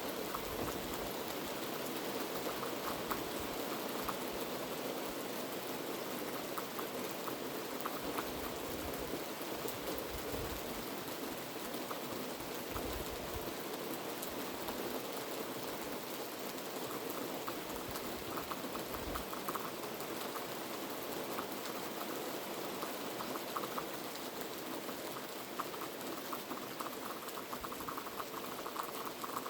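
Heavy rain falling steadily, a dense even patter of drops on hard surfaces.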